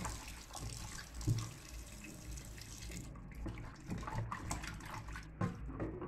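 Kitchen tap running into a metal bowl of water while hands rub raw pork pieces. The running water stops about three seconds in, leaving irregular wet splashing as the meat is turned over in the bowl.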